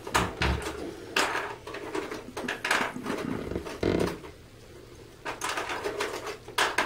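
Household clatter in a small room: a run of sharp knocks and clicks, with dull thumps about half a second in and again near four seconds, and a quieter stretch just after.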